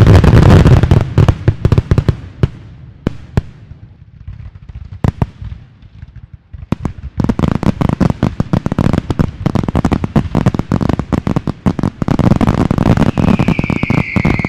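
Fireworks display: a dense barrage of bangs and crackling from aerial shells, thinning to scattered bangs about two to six seconds in, then turning to rapid crackling again from about seven seconds in. Near the end a high tone comes in, falling in pitch.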